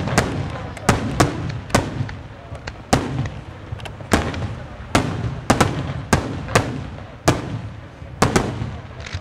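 Aerial firework shells from a St. Mary Fireworks display bursting in quick, uneven succession: about a dozen sharp bangs, each trailing off in a short echo, over a low continuous rumble.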